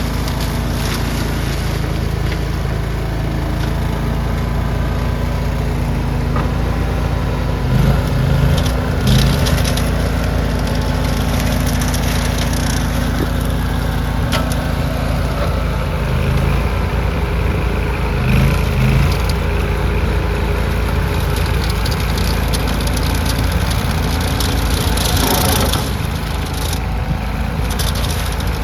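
A skid steer's engine running steadily, swelling briefly twice as it comes under more load or revs.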